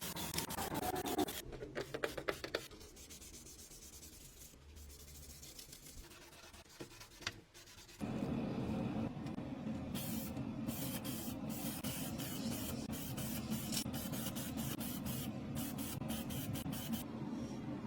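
Quick scraping and rubbing strokes, typical of rust being worked off by hand. About eight seconds in, a steady, even machine-like whirr starts and keeps on.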